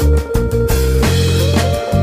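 Background music with a drum-kit beat over a bass line and held notes.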